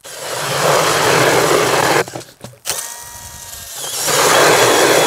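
DeWalt cordless drill turning an 8-inch Eskimo pistol bit ice auger, its blades grinding through ice. About two seconds in it nearly stops, runs slower with a thin motor whine, then picks back up to full speed about four seconds in; the drill's battery is close to dead.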